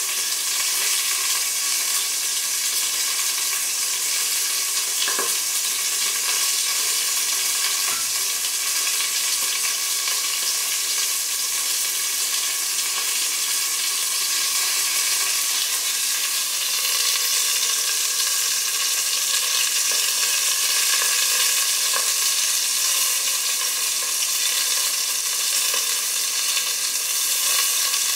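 Flour-coated torpedo scad (chencaru) frying in hot oil in a covered pan: a steady sizzle with a few small pops of oil.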